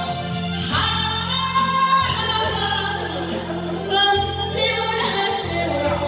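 A woman singing a Korean song into a handheld microphone over amplified instrumental accompaniment. She holds long notes over a steady bass line.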